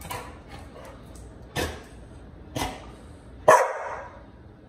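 Dog barking four times in short single barks, the last and loudest about three and a half seconds in.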